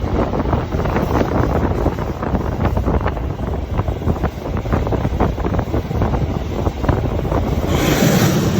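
Running noise from a moving KiHa 40 diesel railcar, with wind buffeting the microphone and many short knocks and rattles. Near the end the noise grows fuller, with more hiss.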